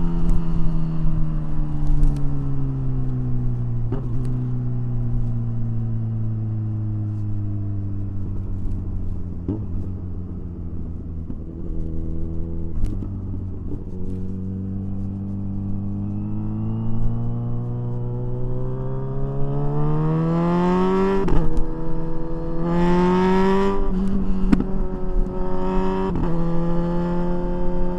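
Kawasaki Ninja 1000SX inline-four engine heard from the rider's seat, its revs falling steadily as the bike slows, with a few sharp pops from the exhaust. Then it holds low and steady before climbing hard through the gears, the pitch dropping abruptly twice near the end at quick-shifted upshifts, with wind rush over the rising engine note.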